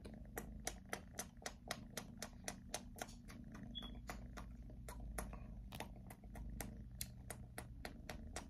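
Tabby kitten purring, a steady low rumble, with quick regular clicks about three a second as it licks and nibbles at a man's cheek and beard.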